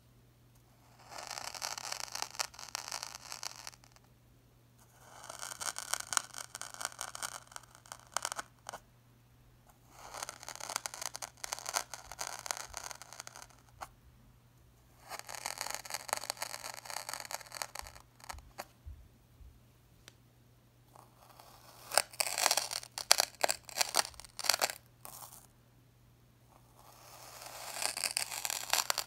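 Moulded coloured sand crunching as a metal tool presses down on it, in four separate bursts of a few seconds each. Then come sharper, crackling crunches as a knife blade slices through a sand shape, with a last cut starting near the end.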